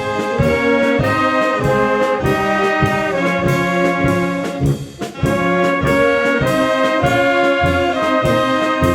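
Brass band playing a Bohemian polka: trumpets and trombones carry the melody over a steady beat in the bass. The music breaks off briefly about five seconds in and then resumes.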